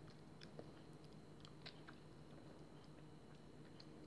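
Faint, sparse wet mouth clicks of someone eating a ripe red gooseberry by sucking the sweet pulp out of its sour skin, over a low steady hum.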